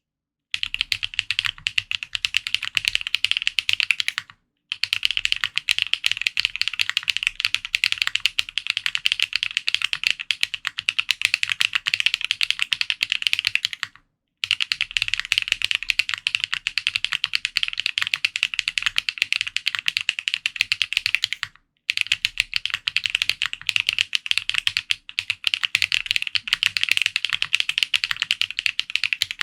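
Fast, continuous typing on a custom Matrix Corsa mechanical keyboard with an aluminium plate, GMK keycaps and Yok Holy Panda tactile switches lubed with Krytox 205g0, giving dense clacky keystrokes. The typing stops briefly three times, about 4, 14 and 22 seconds in.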